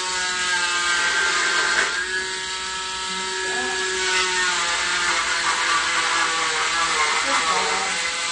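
Oscillating cast saw running continuously as it cuts through an arm cast: a steady high motor whine over a hiss, its pitch shifting now and then as the blade bears on the cast.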